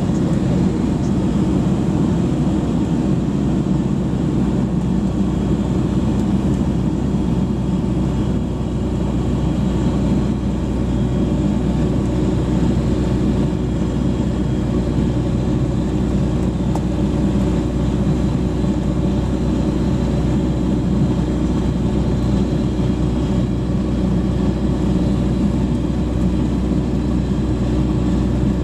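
Eurostar light aircraft's Rotax 912 engine and propeller running steadily at low power, heard from inside the cockpit, during the landing rollout and taxi.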